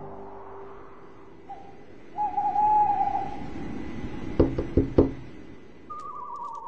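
An owl hooting in wavering notes, a short note followed by a long quavering one, then a higher falling hoot near the end; in between come four quick, sharp knocks.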